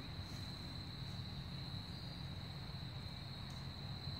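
Insects trilling in a steady, unbroken high-pitched chorus, over a low steady rumble.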